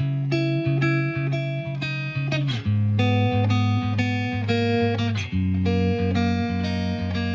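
Background music: a plucked guitar melody with a steady run of notes over a low bass line.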